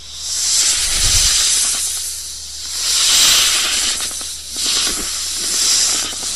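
Snake hissing: three long, breathy hisses, each swelling and fading over about two seconds.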